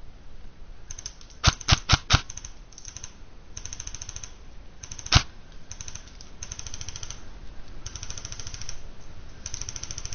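Airsoft guns firing: several short bursts of rapid clicking, with four loud, sharp shots in quick succession about a second and a half in and another single loud shot about five seconds in.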